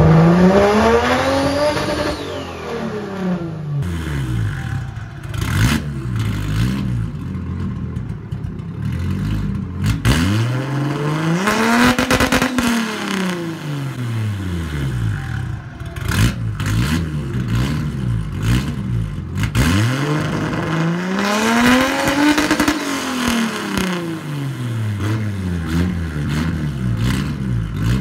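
Turbocharged Nissan RB20 straight-six revved three times from idle, each rev climbing and falling back over about four seconds, with a few sharp cracks between the revs.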